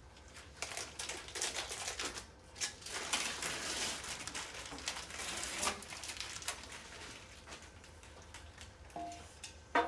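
Irregular clicks, taps and rustling of wall-frame parts being handled, with denser rustling for a few seconds in the middle.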